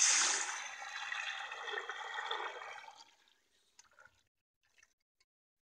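Kadhi batter poured into a pot of hot tempering, hissing and bubbling loudly as it hits the hot oil, then dying away after about three seconds. A few faint ticks follow.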